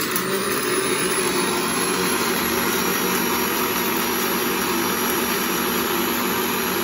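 Electric countertop blender running steadily, a constant motor whir with a thin high whine over it. It is churning coffee, sugar and a splash of milk into a froth.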